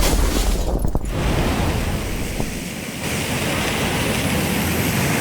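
Rumbling roar trailing an explosion, easing off over the first few seconds and then settling into a steady hiss.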